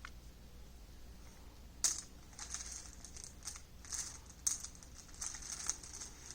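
Small hard objects clicking and rustling as hands rummage through them, with a few sharper clicks along the way.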